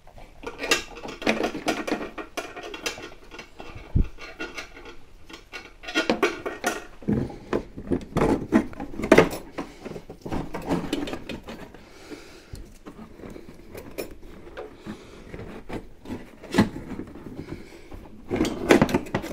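An old hard brake line being pulled out of a car's chassis, scraping and clinking against the frame and its retaining clips in irregular knocks and rattles, with a sharp knock about four seconds in.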